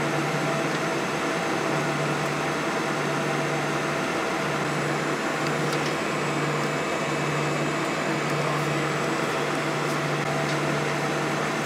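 Steady airliner cabin noise before takeoff: jet engines at idle and the cabin air-conditioning rush, with a low even drone under it.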